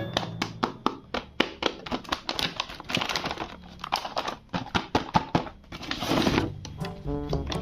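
Plastic toys and packaging being handled: a quick run of clicks and knocks with crinkling, and a short hissing burst about six seconds in.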